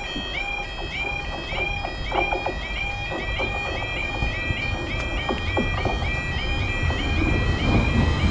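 The two level-crossing yodel alarms warbling continuously in a fast repeating two-tone pattern. A Greater Anglia Class 755 train approaches, and its low rumble grows louder near the end as it reaches the crossing.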